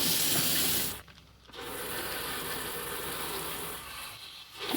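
Water-pump-fed RV toilet being flushed with antifreeze, the flush water rushing and hissing into the bowl. The flow cuts off about a second in, starts again half a second later, and drops once more before picking up at the end: repeated flushes to fill the toilet's line with antifreeze.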